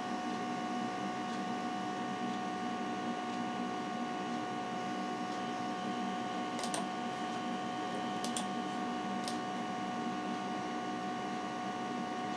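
Steady electrical hum of a running Macintosh SE compact computer, made of several fixed tones. A few sharp clicks come about halfway through.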